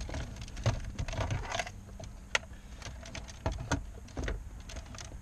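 Irregular clicks, taps and rustling of plastic dash trim and wiring-harness connectors being handled by hand behind a truck's dashboard, with the sharpest click about two and a half seconds in.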